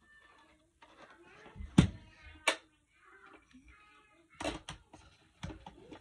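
Hard plastic toys being knocked together and set down by a child, a few sharp clunks: the loudest about two seconds in, a second shortly after, and several more near the end.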